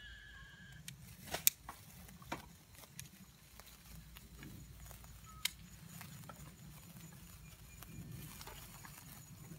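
Several sharp clicks from a hand-held lighter as two 12-inch gold sparklers are lit, the loudest about a second and a half in. Afterwards the sparklers fizz and crackle faintly.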